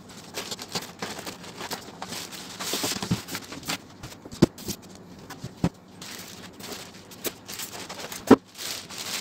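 Unboxing handling noise: a plastic bag crinkling and polystyrene foam packing rubbing and creaking as a boxed sewing machine is lifted out and unwrapped. A few sharp knocks come through, the loudest near the end.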